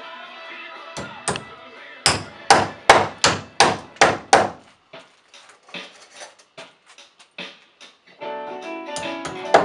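A run of sharp hammer strikes against a wooden wall stud, about three a second at their loudest, then lighter, more scattered taps. Background music plays in the first second and comes back near the end under the last strikes.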